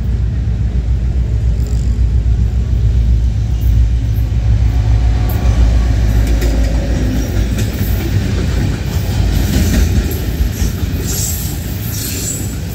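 GMU-30 diesel-electric locomotive passing close at speed, its engine a deep steady rumble, then the container wagons behind it rolling by with wheels clattering over the rail joints from about 8 seconds in.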